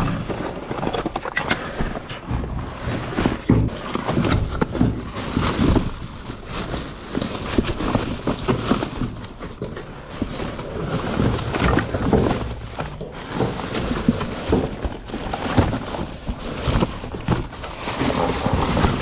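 Rummaging through dumpster contents: rustling of plastic bags and paper, with irregular knocks and thuds as planners, boxes and other items are moved and dropped.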